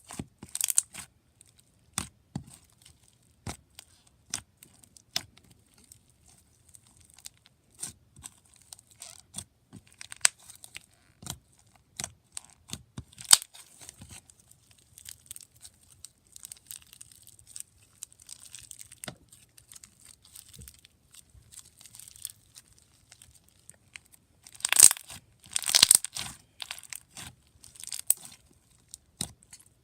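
Borax-free detergent slime being squished and pressed by hand, giving irregular sharp bubble pops and clicks, with a louder cluster of crackling pops about 25 seconds in.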